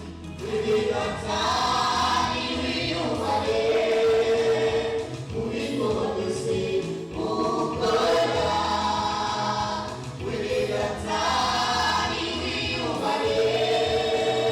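A choir singing a slow gospel song in long, held phrases that swell and fall every few seconds, over a steady low accompaniment.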